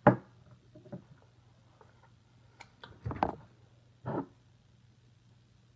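Handling knocks on a desk: a sharp knock at the start, a few faint taps, then two louder bumps about three and four seconds in, over a steady low hum.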